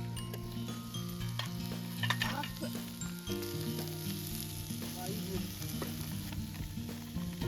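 Food sizzling as it fries in a pan, with a few clicks about two seconds in, under background music with held low notes.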